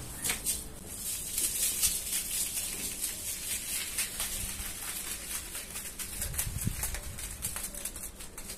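Dense, crackly hiss made up of many small ticks, from cleaning powder on a wet rug.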